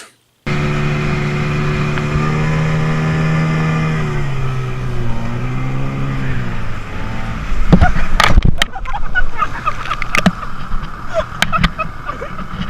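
Motorboat engine running at a steady pitch, then easing off and wavering in pitch. From about eight seconds in, loud irregular thumps and knocks cut through the engine noise.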